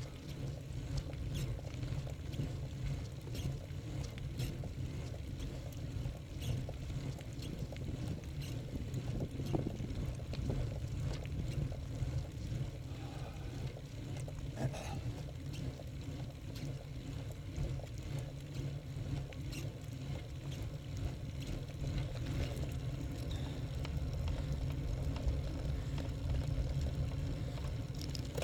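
Steady low rumble of wind buffeting a bicycle-mounted camera's microphone, mixed with tyre noise on cracked asphalt while riding, with a few faint clicks.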